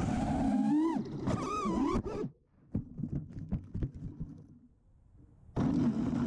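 FPV racing quad's brushless motors (Emax RS2306 2400KV) whining, pitch rising and falling with the throttle, then cutting off suddenly about two seconds in as the quad crashes into grass. A few seconds of faint scattered clicks and rustles follow, and near the end a loud buzzing hum with a low wavering tone starts up abruptly.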